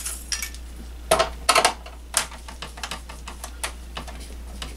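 Sharp clicks and taps of a Phillips screwdriver and gloved hands on the plastic case of a Bose Wave CD radio as a screw is worked out. A few loud clicks come between one and two seconds in, then lighter ticks follow.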